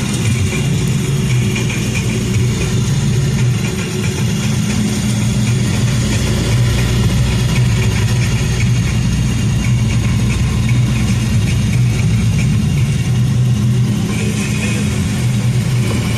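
An engine running steadily at a constant speed, a loud, even drone with no revving.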